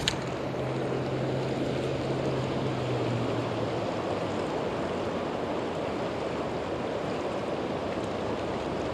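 Swollen river in high water rushing past the bank: a steady wash of moving water. A brief click right at the start as the spinning reel is handled.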